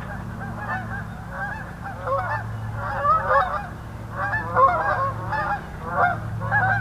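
A flock of geese honking, many short calls overlapping, growing busier from about two seconds in.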